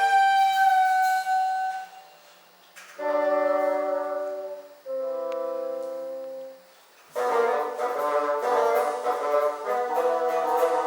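Bassoon ensemble playing: held chords separated by short breaks, then a quicker, busier passage from about seven seconds in.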